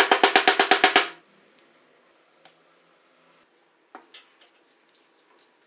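Rapid taps of a plastic-headed mallet driving a ball bearing onto the end of a Bajaj Platina 100 camshaft: about ten strikes a second for the first second, each with a short metallic ring. A few faint clicks of the parts being handled follow.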